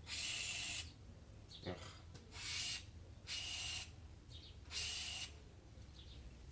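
Aerosol can of multi-purpose spray hissing in four short bursts, each under a second, as it is sprayed into a sticky, carbon-fouled idle air control valve to flush it clean.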